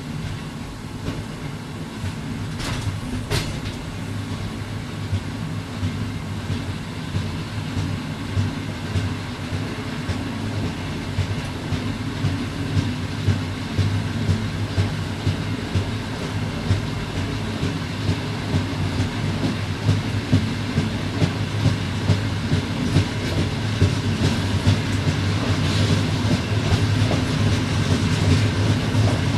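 Passenger train running over jointed track, heard from its rear: a steady low running rumble with the wheels clicking over rail joints. The rumble slowly grows louder, and from about halfway the joint clicks come at a regular beat.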